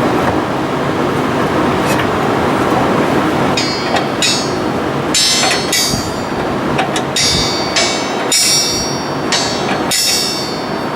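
Repeated metallic clanks and rattles of tools working on metal, starting about three and a half seconds in and coming in quick clusters, over a loud steady background noise.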